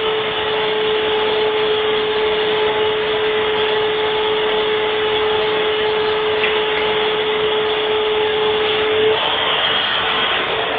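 Vacuum cleaner running steadily: a loud rush of air with a steady whine on top. The whine drops out about nine seconds in while the rushing carries on.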